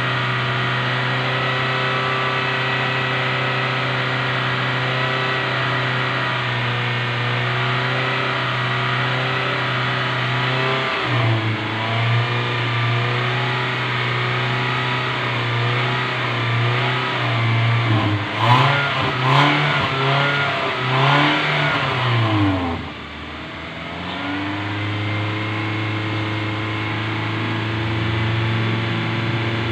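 A Toyota Innova's engine runs at steady, raised revs while its exhaust pours white smoke during a carbon-cleaning treatment, as the carbon burns off. About two-thirds of the way through it is blipped several times in quick succession, drops back briefly, then settles again to a steady run.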